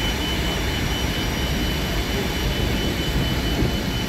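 Fire engines running their water pumps: a steady, heavy drone with a thin high whine held over it.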